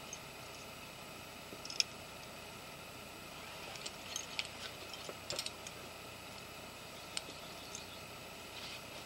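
Faint scattered clicks and light rattles over a steady hiss: a sharp click about two seconds in, a cluster of them about halfway through, and one more near the end.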